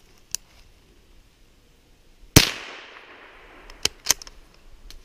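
.22 Long Rifle rifle fired once about two and a half seconds in: a sharp crack with a tail of echo that dies away over about a second. Two smaller sharp clicks follow about a second and a half later.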